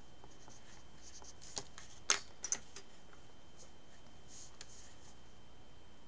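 Sculpting tools scraping and rubbing lightly on soft polymer clay in faint scratchy strokes, with a few sharp clicks about two seconds in as a wooden tool is swapped for a metal needle tool.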